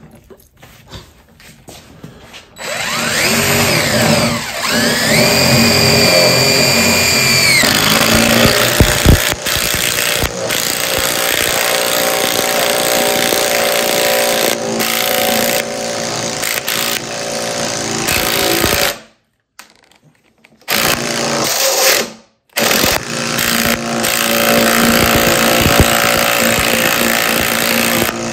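DeWalt cordless impact driver driving a long lag screw into hardwood: the motor spins up with a rising whine, then the rotational hammer mechanism engages with a rapid, continuous rattling hammering as the screw is driven home under load, stopping briefly twice near the end.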